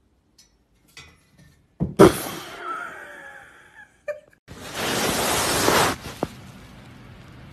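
A sudden loud crash about two seconds in as a cat drops from the top of a metal loft-bed ladder to the floor, followed by a fading vocal reaction. A loud noisy rush follows and lasts about a second and a half.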